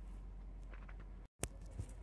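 Faint low room noise that drops out completely for a moment about a second in, then a sharp click and a soft tap.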